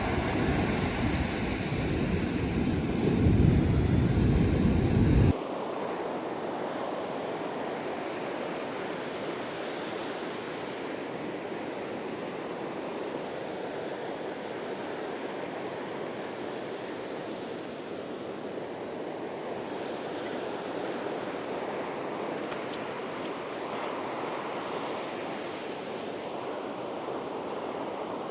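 Ocean surf breaking and washing steadily on a sandy beach. In the first five seconds a louder low rumble lies over it and cuts off suddenly.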